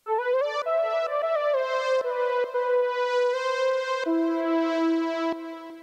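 UJAM Usynth Caramel software synthesizer playing a lead patch: a short melody of held notes that slide between pitches, dropping to a lower held note about four seconds in.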